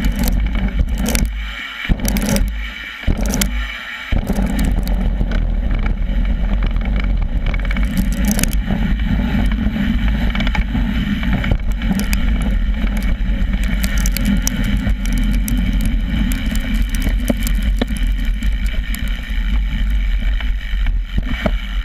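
BMX bike being ridden, heard from right under the frame: a loud, steady rumble of the tyres rolling over gravel and dirt, with sharp rattling clicks from the chain and frame. The rumble drops away briefly a few times in the first four seconds.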